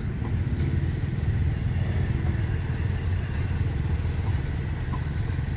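Train of towed diesel railcars rolling slowly past, a steady low rumble.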